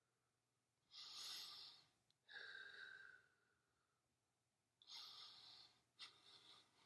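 A woman breathing deeply while holding a plank exercise: four breaths of about a second each, with short quiet gaps between them.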